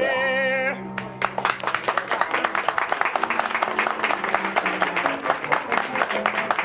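A sung number ends on a held, wavering note about a second in, and a nightclub audience breaks into applause while the instrumental accompaniment keeps playing underneath, heard on a 1960 live LP recording.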